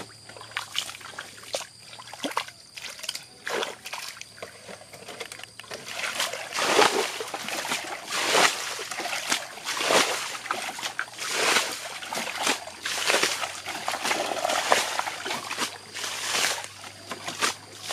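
Fish splashing in a shallow muddy stream: irregular splashes over trickling water, coming thicker from about six seconds in.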